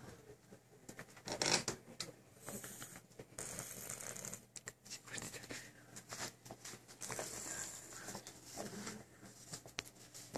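Irregular rustling and scratching of clothing and blanket fabric with small clicks and knocks as a child shifts against a sofa, loudest about one and a half seconds in.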